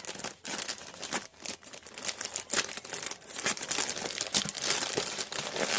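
Shipping package being torn open and its packaging crinkled by hand: a steady run of crackling and rustling with many small snaps, ending in one louder rip.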